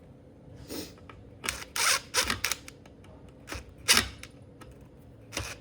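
Hands working on the opened Hiblow HP60 septic air pump: a handful of irregular sharp clicks and knocks of parts being handled and fitted, the loudest about four seconds in.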